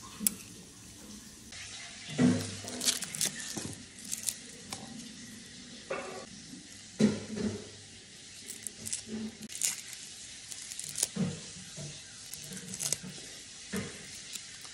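Close-up eating and food-handling noises: a scattered series of short clicks and rustles from chopsticks and a ceramic bowl of soup noodles, and the papery skin of a raw garlic clove being peeled by hand.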